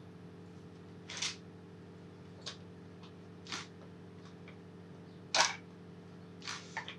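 A handful of short plastic clicks and knocks as a hinged plastic torch case is handled and snapped open, the loudest about five seconds in, over a steady low hum.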